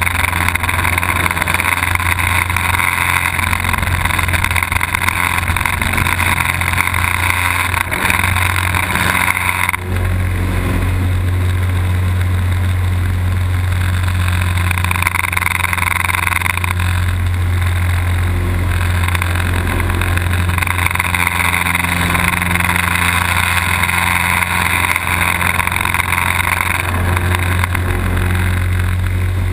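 Piston engine and propeller of a small aerobatic plane heard from inside the open-framed cockpit: a steady low drone under a rush of engine and air noise that swells and eases several times as the plane manoeuvres, dropping back about ten seconds in.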